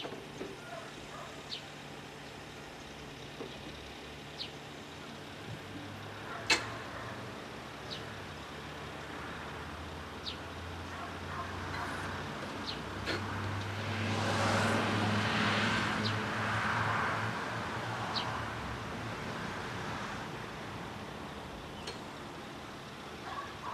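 Scania R440 timber truck's straight-six diesel running steadily to drive its V-Kran crane, swelling louder for a few seconds past the middle. Sharp single knocks of logs clunking in the grapple and onto the load come every few seconds, the loudest about six seconds in.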